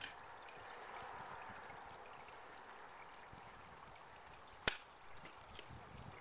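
An ice axe swung into waterfall ice: one sharp, short hit about three-quarters of the way through, over a faint steady hiss.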